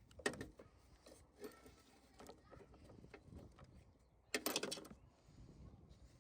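Hand work on a lawnmower's carburettor and fuel line: scattered sharp clicks and knocks of parts and tools being handled, with a short burst of rattling clicks about four and a half seconds in.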